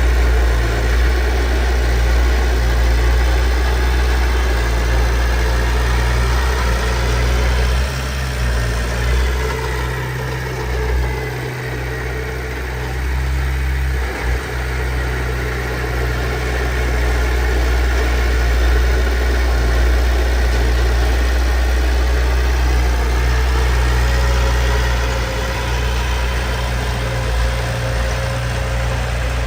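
Heavy diesel engine of earthmoving machinery running steadily with a deep drone, dipping briefly about halfway through before picking up again.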